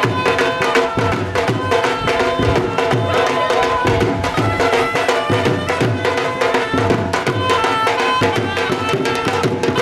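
Dhol drums playing a fast, driving bhangra beat, with a held melody line played over it.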